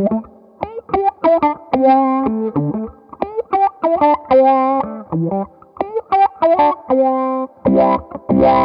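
Electric guitar played through a SolidGoldFX Supa Funk envelope bi-filter, its sweep direction switched to reverse. Short, clipped chord stabs and single notes each bend in a filter sweep, and near the end comes a denser, strummed run.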